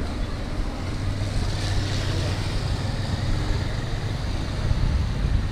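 Motorcycle engine running as the bike rides through a flooded street, with a steady low hum and water swishing around the tyres.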